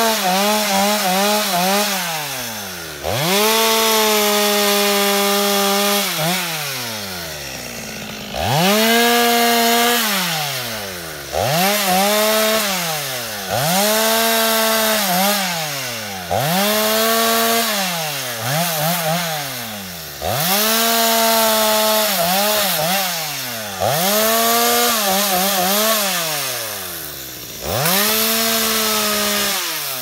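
Two-stroke chainsaw revved to full throttle in about eleven bursts of one to three seconds, its pitch sliding down toward idle between them as it cuts through brush and branches.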